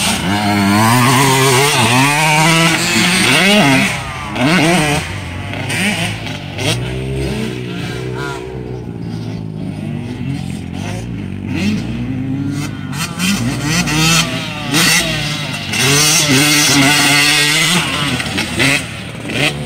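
Motocross dirt bike engines revving hard, the pitch climbing and dropping again and again with throttle and gear changes. A bike goes by close at the start, others are heard further off through the middle, and a bike passes close again near the end.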